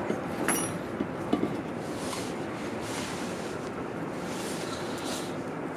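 Metal profile bars of a solar-panel mounting stand being handled on a wooden table: a light click about half a second in and a sharper knock about a second and a half in, over a steady background hiss.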